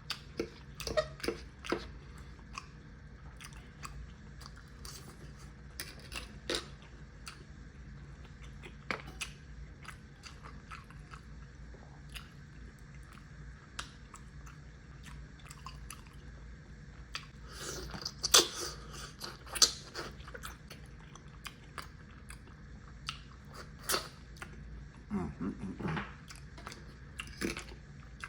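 Close-miked chewing and biting of a person eating oxtail and rice: irregular wet smacks and clicks of the mouth, busiest a little past halfway.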